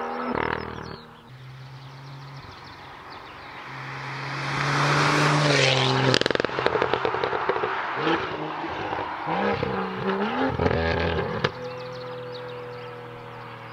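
BMW M2's turbocharged straight-six, tuned to about 450 hp, running through an Fi aftermarket exhaust. It builds to a loud full-throttle run, then gives a quick rattle of crackles as the throttle closes. It revs up and down a few times before settling to a steady low note.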